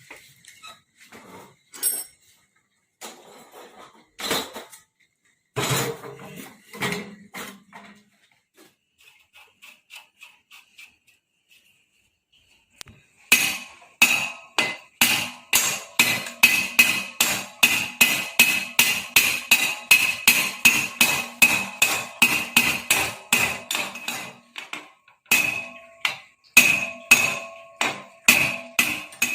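Hammer blows on metal: a few scattered knocks and taps, then about halfway through a long run of quick, even strikes, roughly three a second, each one ringing.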